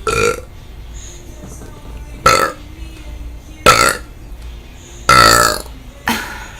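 A woman burping five times in a row, short separate burps a second or two apart, the fourth one a little after five seconds in the longest.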